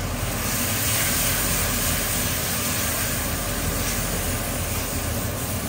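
Chicken feet frying in a stainless steel wok on a gas stove: a steady, even sizzling hiss.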